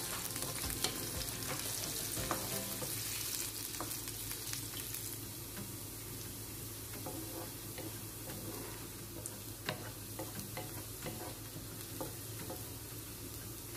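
Diced onions sizzling in hot oil in a frying pan as they sauté toward light browning, with a wooden spatula scraping and clicking against the pan now and then as they are stirred. A faint steady low hum runs underneath.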